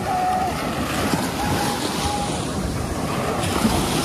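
Ocean waves washing onto a sandy beach, a steady surf wash, with wind rumbling on the microphone.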